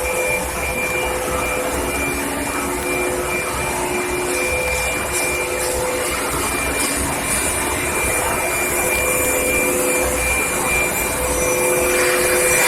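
Steady whirring machine noise from a factory pipe heat-treatment line, with a steady electrical hum and a few tones that come and go.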